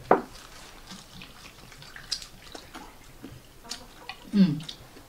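Liquor poured slowly from a glass bottle into a small drinking glass, a faint trickle. There is a sharp click just after the start and a short voice sound about four seconds in.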